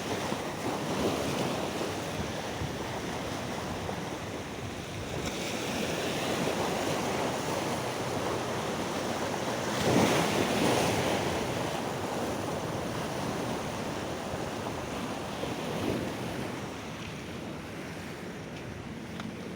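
Sea waves breaking on a beach: a continuous rush of surf, with the loudest wave crashing about halfway through and a smaller one a few seconds later.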